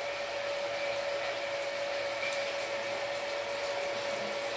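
Rain falling steadily, an even hiss, with a steady humming tone underneath.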